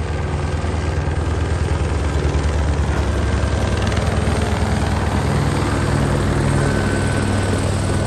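Police helicopter hovering or circling overhead, its rotor beating steadily with a fast, continuous chop.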